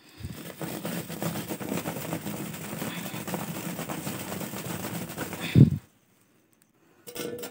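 Baked litti dough balls knocking and rattling together inside a cotton cloth bundle that is shaken hard to beat the ash off them, a steady shaking noise for about five and a half seconds that ends in a single thump.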